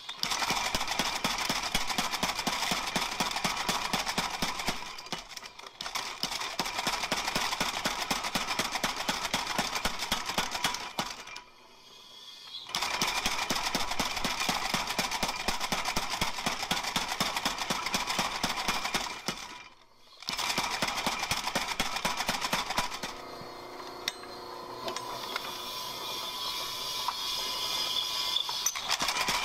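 Homemade power hammer pounding red-hot steel between its combo dies in fast runs of blows, with short pauses about five, twelve and twenty seconds in. The blows turn lighter and quieter for the last few seconds.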